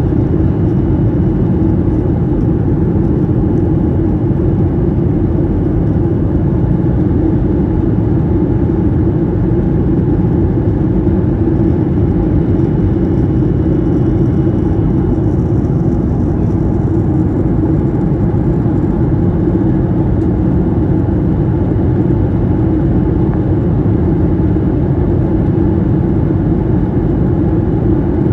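Steady cabin noise of an airliner in flight, heard from a window seat: a constant low rumble of engines and rushing air, with a faint steady high tone above it.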